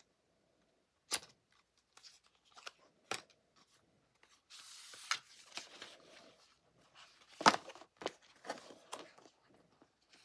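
Apple Watch strap packaging being handled and torn open: scattered sharp clicks and taps, with a brief tearing sound about four and a half seconds in.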